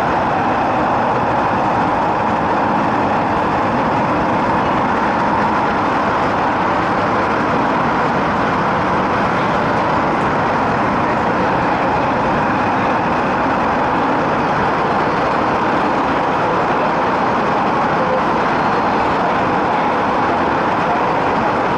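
Running noise of an MTR East Rail Line MLR electric train heard inside the passenger car while travelling between stations: a loud, steady, even noise that holds without rising or falling in pitch.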